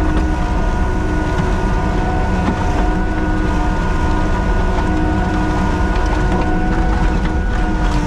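Kubota SVL97-2 compact track loader's diesel engine running steadily under load during grading, with a steady whine over a deep rumble.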